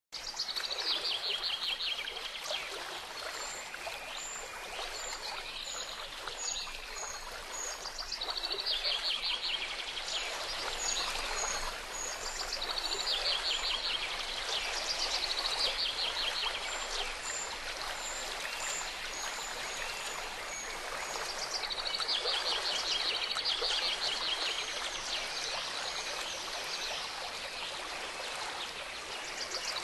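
A babbling stream with songbirds over it: a fast trill that comes back every several seconds, and short high chirps in between.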